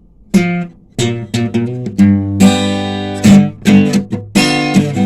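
Acoustic guitar strumming chords in a steady rhythm, starting a moment after a brief pause.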